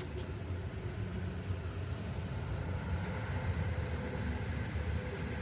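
Low, steady rumbling drone of an ominous suspense soundtrack, with faint held tones above it, slowly growing louder.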